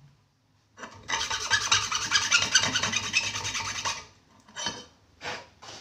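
A pen barrel's cut end rubbed back and forth on a flat steel file, smoothing it: about three seconds of fast, continuous rasping, then a few slower single strokes near the end.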